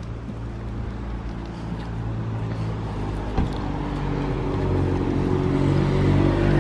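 A motor vehicle's engine running at a steady pitch, growing steadily louder as it comes closer, with a single short knock about three and a half seconds in.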